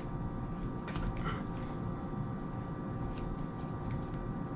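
Dull scissors cutting strands of 550 paracord: a few faint, scattered snips and clicks over a steady background hum.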